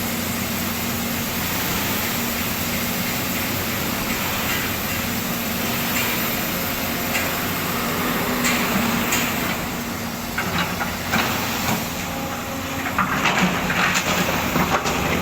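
Volvo excavator's diesel engine running steadily. From about halfway in come clanks, knocks and scraping, growing louder and busier near the end, as the bucket works soil and stones.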